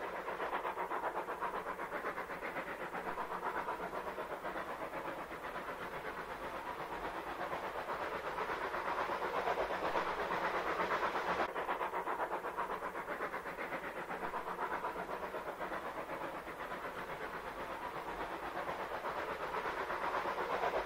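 Dapol O gauge Terrier model locomotive running with a train of freight wagons on Peco set track: a steady motor whir with rapid clicking of the wheels on the rails, growing louder and softer as the train comes round the curve.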